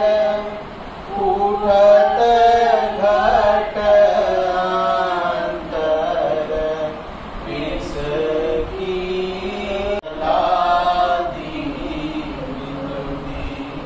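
A small group of men and women chanting a Hindu devotional hymn (bhajan) together in unison, unaccompanied, with long held notes.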